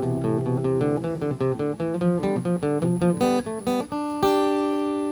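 Acoustic guitar playing an intro, chords picked in a quick even rhythm of about four strokes a second, then one chord struck about four seconds in and left ringing.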